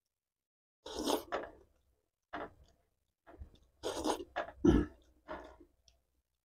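Close-miked eating sounds: wet chewing and mouth smacking while eating catfish in tongseng broth by hand, in irregular bursts with the loudest a little before five seconds in.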